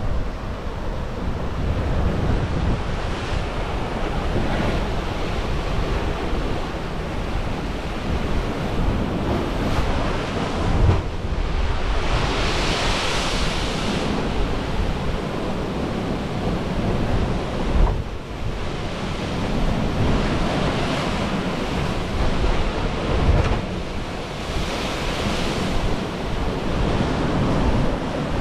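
Caribbean surf breaking against limestone cliffs and surging into a narrow rocky inlet, with two stronger swells of hissing foam, one near the middle and one later on. Wind buffets the microphone with a heavy low rumble.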